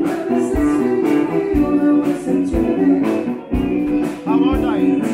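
Background music in a bar: a song with a singer and guitar over a steady beat, with a low kick thump about once a second.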